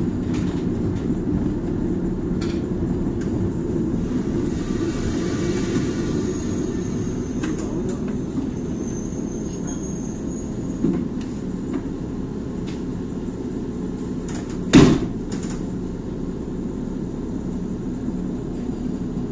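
Train running along the track, heard from the cab as a steady low rumble of wheels and running gear, with a few light clicks and one sharp loud knock about three-quarters of the way through.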